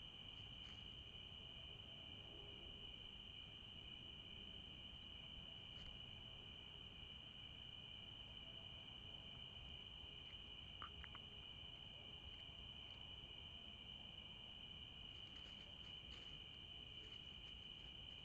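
Faint, steady chorus of crickets: an unbroken high-pitched drone over low hiss, with a few faint ticks along the way.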